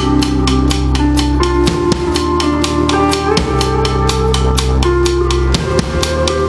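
A band playing: a drum kit keeps a steady, quick beat with cymbal strokes about five a second, over bass and guitar chords that change every second or so.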